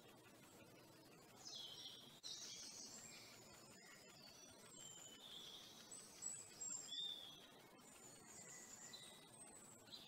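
Great spotted woodpecker nestlings giving faint, high, buzzy begging calls in repeated bursts, starting about a second and a half in and fading near the end.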